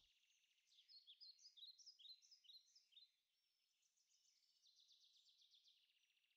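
Faint outdoor birdsong: a run of short chirps and sliding whistles for the first few seconds, then a rapid, even trill.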